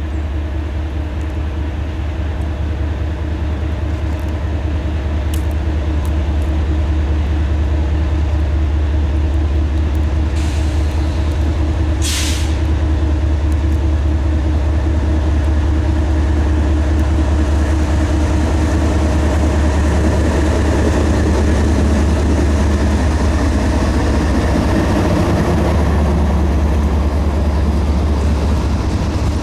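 CSX freight train passing: the diesel locomotives' steady low engine drone grows as they approach and go by, with a short sharp hiss about twelve seconds in. In the second half the hopper cars roll past, their wheels running on the rails.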